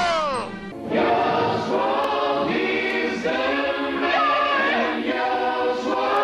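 A falling tone dies away in the first half second, then choral music begins: many voices holding chords that change in steps.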